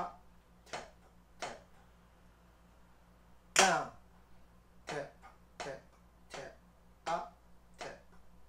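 Drumsticks striking a rubber drum practice pad one slow stroke at a time, about 0.7 s apart. About three and a half seconds in comes one much louder accented down stroke, followed by six lighter taps: a slow breakdown of the sticking right, left-left, right-right, left-left.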